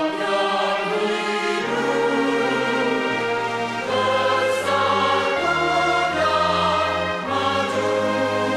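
Recorded anthem sung by a choir with orchestral accompaniment, in steady held notes.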